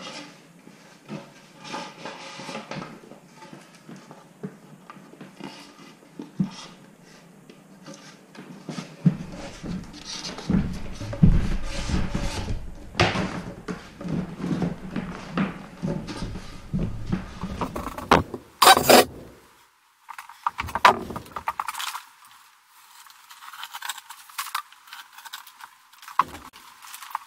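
Sheet of half-inch plywood being handled and pressed against wall studs: irregular knocks, scrapes and rustling, busiest in the middle, with one sharp loud knock about two-thirds of the way through.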